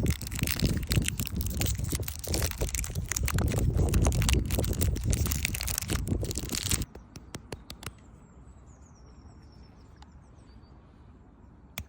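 KitKat wrapper crinkling and tearing, a dense crackle of sharp little snaps that stops abruptly about seven seconds in.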